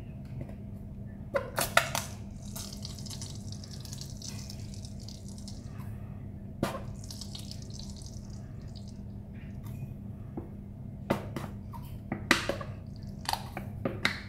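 Mayonnaise squeezed from a plastic squeeze bottle onto shredded cabbage and carrot: soft wet squirting and sputtering, with a few sharp clicks and taps from handling the bottle.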